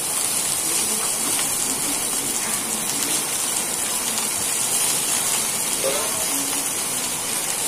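Raw chicken pieces sizzling in hot oil in a kadai, a steady frying hiss as the moisture on the meat cooks off.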